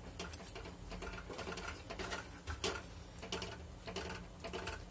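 A spoon scraping and clicking against a steel kadai as cream is stirred into thick curry gravy: irregular soft clicks and scrapes, a few a second.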